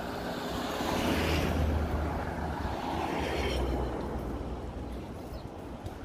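A car passing on the road: its engine and tyre noise builds, is loudest from about one to three and a half seconds in, then fades away.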